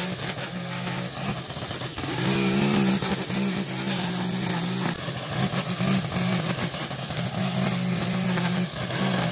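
Zero-turn riding mower's engine running steadily under load while cutting tall grass, its hum rising and dipping every second or two.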